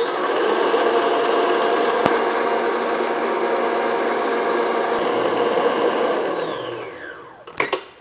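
Stand mixer motor on high speed, its paddle beating egg yolks, eggs and sugar: a steady whine that starts at full speed, then winds down in falling pitch about six to seven seconds in. A few sharp clicks come near the end.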